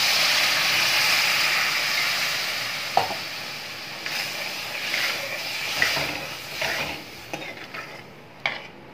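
Water poured into a hot metal kadhai of masala-coated potatoes, hissing and sizzling as it hits the oil and spices, dying down about three seconds in. After that a steel spoon stirs the watery curry in short scraping strokes against the pan.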